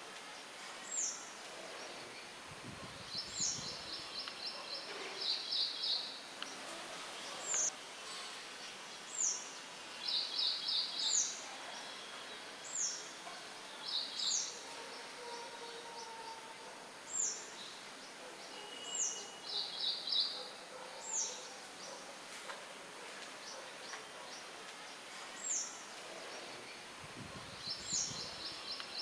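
Small birds chirping: one repeats a short high note that drops in pitch every second or two, and another breaks in now and then with quick trilled runs. Underneath is a steady, even rush of light wind.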